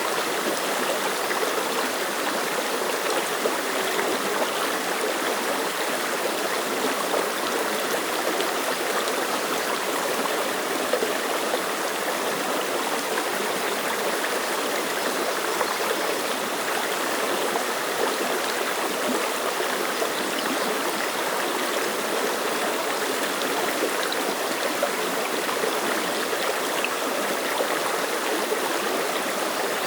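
Mountain stream flowing over rocks, a steady, even babble of running water.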